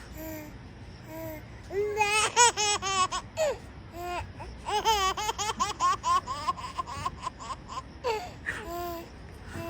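Bursts of high-pitched, rapid laughter, the first about two seconds in and a longer run from about five seconds, over a premature baby's short squeaky hiccups repeating every second or less near the start and end.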